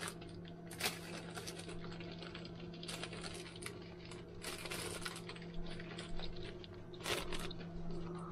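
Small parts being handled: plastic parts bags crinkling and light clicks of small pieces, in scattered bursts over a steady low hum.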